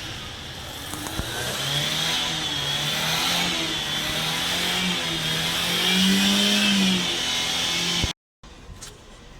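Daihatsu Mira ES engine running with a high, wavering squeal from the alternator belt, the sign of a dry or worn belt; the engine note rises a little about six seconds in. The sound cuts off abruptly near the end.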